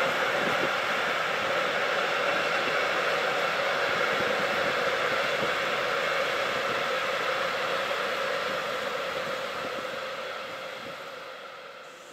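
Steady running noise of a moving train, an even hiss with a constant hum through it, fading out over the last few seconds.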